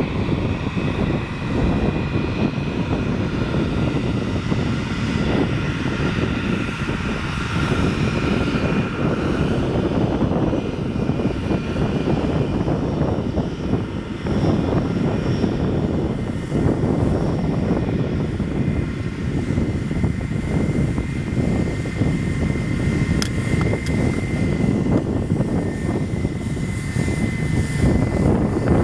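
Airbus A321 jet engines running at taxi power: a steady whine with tones that drift slightly in pitch. Heavy, irregular wind buffeting on the microphone sits underneath it.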